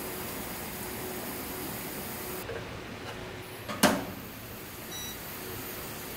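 Cuchen toaster oven door clacking once, sharply, about four seconds in, over a steady low room hum, with a faint short beep about a second later.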